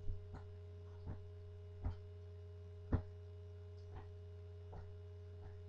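Steady low electrical hum, with a few faint, irregularly spaced knocks; the loudest comes about three seconds in.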